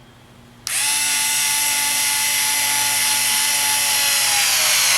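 Cordless screwdriver motor and gearbox running: a steady high whine that starts abruptly less than a second in and holds. Its pitch sags slightly near the end.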